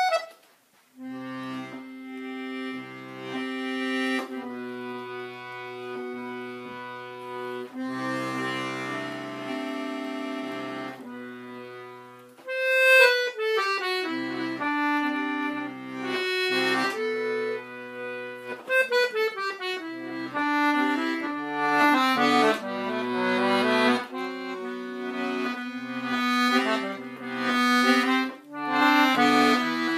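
Castagnari G/D diatonic button accordion (melodeon) playing a tune, a melody over left-hand bass and chord notes. A short knock comes at the very start, the music starts about a second in with slower held notes, and at about twelve seconds it picks up into a quicker, livelier melody.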